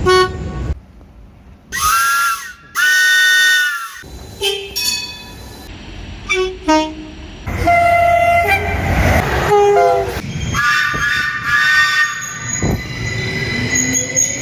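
A string of different train horn and whistle blasts, one after another with abrupt cuts between them: chords of a multi-note horn held about a second, short single-note toots, and near the end a steadily rising tone.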